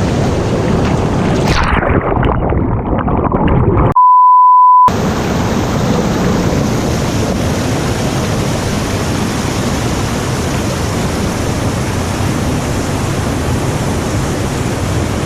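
Rushing stream water picked up by a GoPro. About one and a half seconds in it turns muffled as the camera goes under the water. A loud, steady beep tone then cuts in for about a second, and after it the rushing water is heard clearly again.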